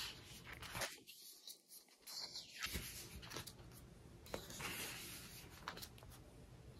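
Faint paper rustles and light handling ticks as the pages of a large photobook are turned.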